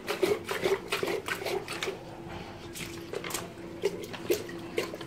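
Water sloshing and splashing inside a lead-acid battery case as it is shaken to wash sludge out of the cells: quick, rapid splashes for about two seconds, then fewer, spaced splashes.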